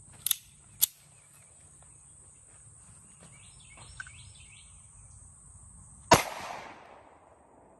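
Yugoslavian M57 pistol (7.62×25mm Tokarev) firing a single shot about six seconds in: a sharp report with a short echoing tail. Two sharp clicks come near the start.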